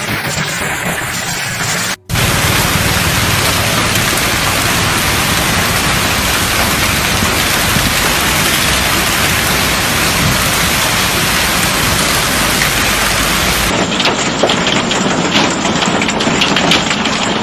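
Heavy rain and hail in a thunderstorm. Hail ticks on a car windshield at first. After a sudden cut comes a steady, dense downpour, and in the last few seconds hailstones pelt down with many sharp clicks.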